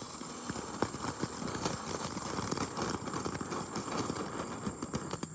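Small ground firework burning with a dense crackling hiss that builds about half a second in and dies away near the end: a weak, short-lived effect.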